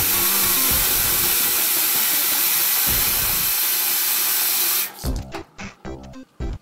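Bathroom sink faucet running hard, its stream splashing into the basin and down the drain as a steady hiss. It cuts off suddenly about five seconds in, and music follows.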